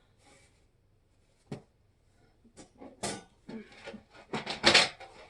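A single knock, then a run of short scraping and rubbing bursts of cardboard packaging against metal grill parts as they are pulled out of the shipping box, loudest near the end.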